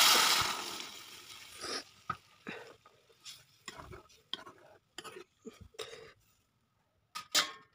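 Hot water poured into a karahi of frying meat and potatoes hits the hot oil with a loud sizzle that dies away over about two seconds. Then a metal ladle scrapes and knocks against the pan as the watery curry is stirred, with a couple of sharper knocks near the end.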